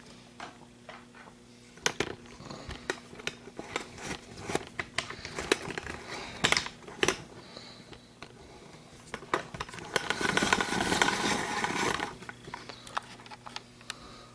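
Handling noise: a run of small, irregular clicks and knocks as objects are picked up and moved, then a louder rustling stretch about ten seconds in.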